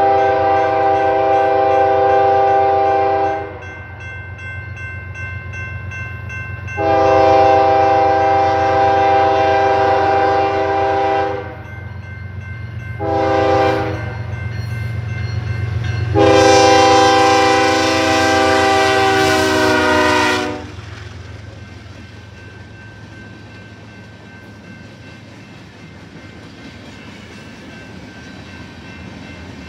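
A BNSF diesel freight locomotive's multi-chime air horn blowing the grade-crossing signal: long, long, short, long, the last blast dropping slightly in pitch as it closes in. Under the horn is the steady low rumble of the diesel engine, which grows again near the end as the locomotive passes close by.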